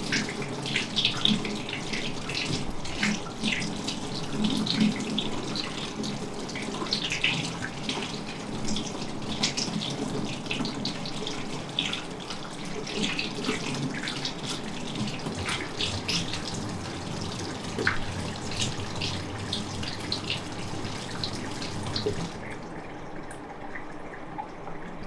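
Tap water running and splashing, with a steady rush and many small spatters. The flow is shut off about 22 seconds in, leaving only faint drips and low noise.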